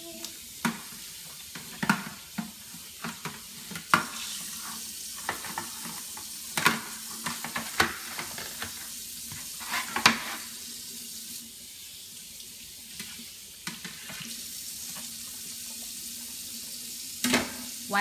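Kitchen faucet running steadily into a stainless steel sink, with plastic plates clattering and knocking now and then as they are rinsed under the stream and set into the dishwasher rack.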